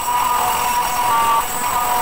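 CNC milling machine's end mill cutting a lock slot in an aluminium sliding-door profile: a loud, continuous high-pitched whine with a few steady tones that shift slightly as the cutter moves along the slot.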